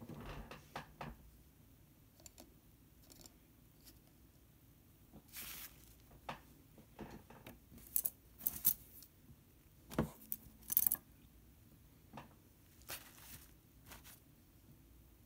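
Scattered light taps, clicks and clinks of painting tools handled on a table, with a short scrubbing sound about a third of the way in and a few sharper clinks past the middle.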